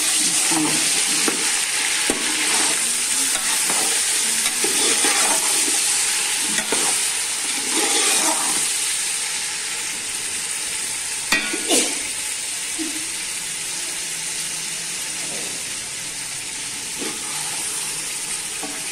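Chicken pieces sizzling steadily as they fry in hot ghee in a metal pot, stirred with a metal slotted spoon. The spoon scrapes and clinks against the pot, most sharply a little past halfway.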